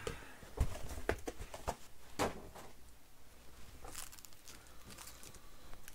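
Foil-wrapped trading card packs being handled by hand: a few scattered light taps and knocks with faint rustling as packs are shifted and set down on the stack, most of them in the first couple of seconds and one more about four seconds in.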